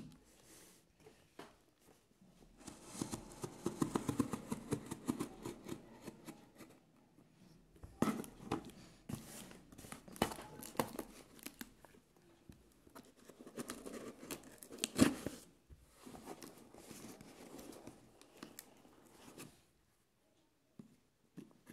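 Cardboard mailer box being opened: packing tape slit with a knife, and tape and cardboard torn and crinkled, in several bursts of scraping and ripping with a sharp crack about 15 seconds in.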